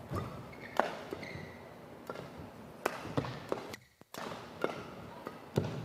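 Badminton singles rally: a series of sharp racket-on-shuttlecock hits, with court shoes squeaking briefly on the floor and footfalls in a large hall. The sound drops out briefly about four seconds in.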